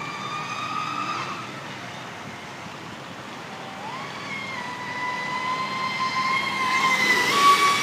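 Traxxas Spartan RC speedboat's brushless motor whining at speed. The whine fades after about a second, then returns with a rising pitch as the throttle opens near four seconds in. It holds steady and grows louder, with a rush of hull and spray noise near the end as the boat runs close.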